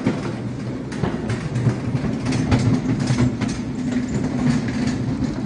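Hospital stretcher being wheeled over a corridor floor: a steady rolling rumble with its metal frame and wheels rattling in irregular clicks.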